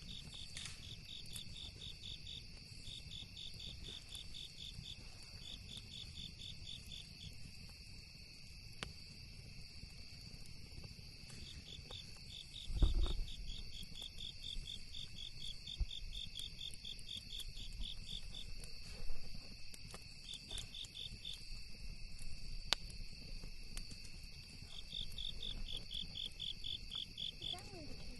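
Crickets chirping in repeated trills of rapid pulses over a steady high-pitched insect drone, with an occasional sharp crackle from the campfire and a dull low thump about 13 seconds in.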